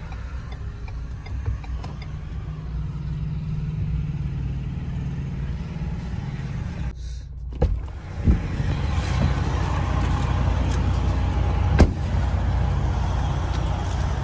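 Ford F-150 pickup's low, steady engine and road rumble heard from inside the cab. About 8 s in, a few sharp clicks come as the door latch opens, and a louder, fuller outdoor engine rumble follows. A single sharp thud near 12 s is the door shutting.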